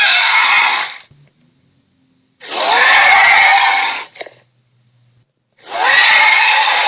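Film creature roar sound effects: three harsh, loud roars with a rising pitch at the start of each, one ending about a second in, one lasting under two seconds from about two and a half seconds in, and one starting near the end, with near silence between them.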